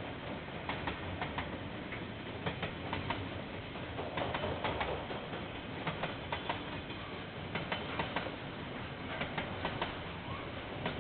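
Container freight train wagons rolling past, with a steady rumble and wheels clicking over the rail joints in small groups.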